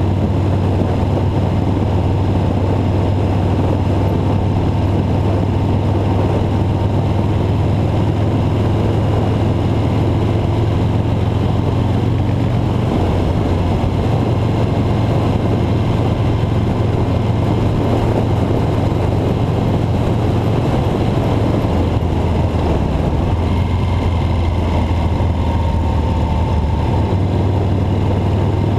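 A vehicle driving along a snow-covered road: a steady low drone of engine and road noise.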